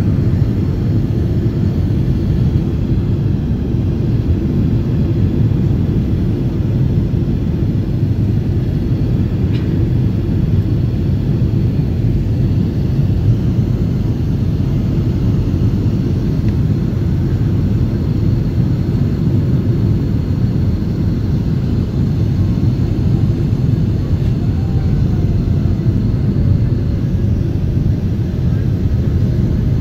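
Steady low roar of a jet airliner heard from inside the passenger cabin during the descent to land: engine and airflow noise.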